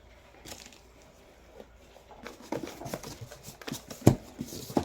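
A shipping box of rough rocks being opened and handled: scattered rustling and light clicks, with a sharp knock about four seconds in and another just before the end.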